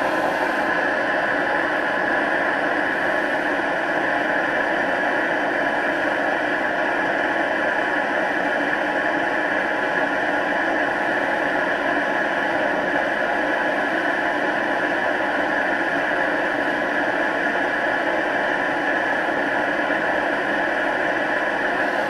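Chinese diesel air heater running with the end of its burn chamber cut off: a steady, even rushing noise of the burner flame and its blower.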